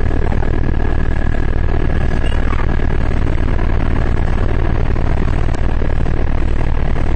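Eurocopter AS350 BA Écureuil single-turbine helicopter in flight: steady, loud rotor and engine noise with a fast, even beat and a constant high whine.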